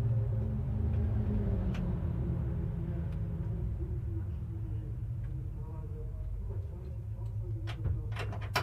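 Low steady rumble in the cockpit of a stationary Porsche 911 GT3 R race car, fading slowly, with a few sharp knocks near the end as the pit crew handle the car. Muffled voices are heard faintly.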